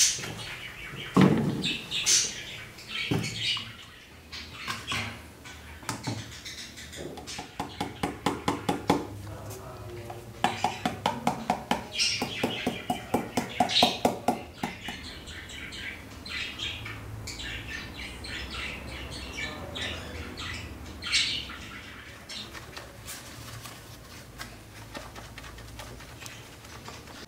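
Small plastic storage tubs and lids clicking and clattering as they are handled, with two runs of quick light taps, while small birds chirp in the background.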